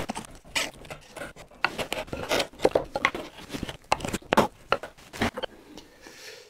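Wood chisel paring by hand, a series of short, irregular scraping strokes as thin shavings are cut from the wood.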